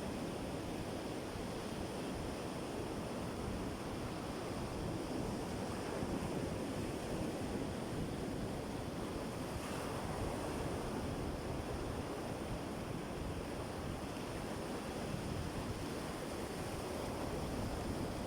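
Sea surf washing on the shore as a steady rush, swelling a little every few seconds.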